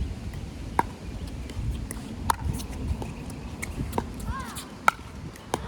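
Pickleball rally: paddles hitting a plastic ball, five sharp pops spaced about a second or so apart, quickening toward the end, over low wind rumble on the microphone.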